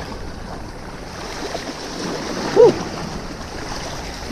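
Steady rush of wind and sea waves at the water's edge. One short vocal exclamation rises and falls about two and a half seconds in.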